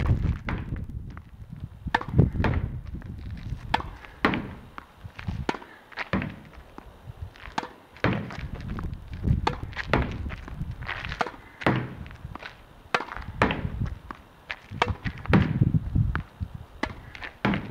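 Tennis ball being hit hard against a practice wall in a steady rally: sharp racket strikes, each followed by the ball's thud off the wall and its bounce on the hard court, about one or two hits a second.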